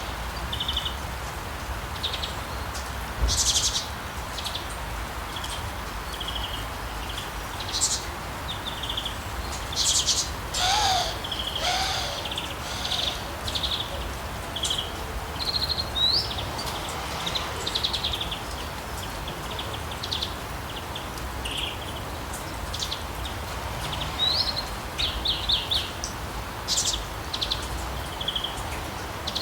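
Steady rain falling, with birds chirping and singing in short, high calls and trills over it throughout.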